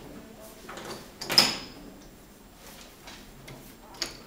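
A few sharp knocks and clatters of objects being handled, the loudest about a second and a half in with a short high ring, and another near the end.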